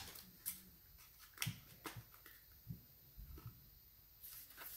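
Faint, scattered clicks and light taps of a small plastic toy package being handled as someone struggles to open it, with a soft rustle near the end.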